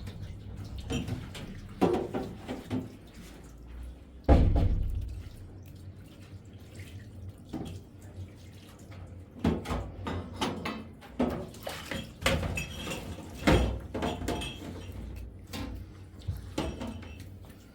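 A run of knocks and clunks of things being handled, with two heavier thumps about four and thirteen seconds in.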